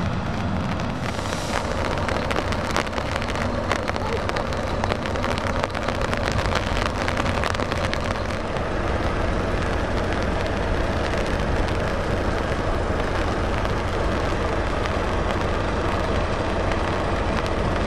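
Heavy truck diesel engines running in slow traffic, a steady low rumble, under a constant hiss of rain and tyres on a wet road.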